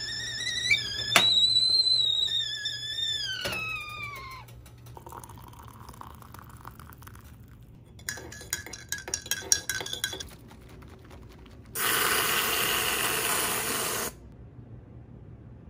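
Stovetop kettle whistling at the boil, its pitch sagging and falling away about four seconds in. Later a metal spoon clinks against a mug while stirring coffee, and near the end a whipped-cream aerosol can hisses for about two seconds as it sprays.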